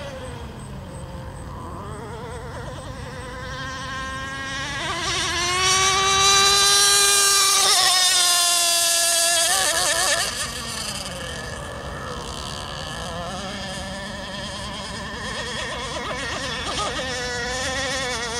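Nitro RC rigger boat's CMB .91 two-stroke glow engine running at speed, a high whine. It grows louder as the boat comes closer, is loudest from about six to ten seconds in, then drops in pitch and fades as the boat passes.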